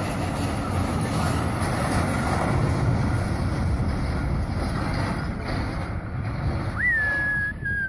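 Heavy lorry and its loaded flatbed trailer rumbling and grinding as the trailer slides off the edge of the road into rocks, with wind buffeting the microphone. Near the end a short high whistle rises and then holds.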